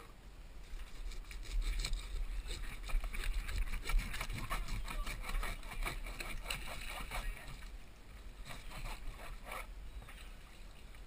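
A long knife sawing and chopping through a barracuda on a plastic cooler lid: a quick, uneven run of crunching clicks and scrapes as the blade works through the body. A low rumble of wind and water sits underneath.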